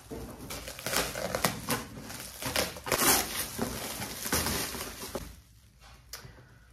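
Clear plastic stretch-wrap packaging crinkling and ripping as a parcel is unwrapped by hand, in quick irregular rustles that die down about five seconds in.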